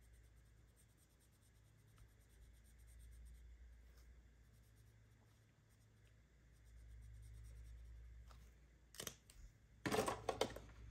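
Faint room tone for most of the stretch, then a couple of sharp clicks and, near the end, a burst of paper rustling and crinkling as cash and envelopes are handled.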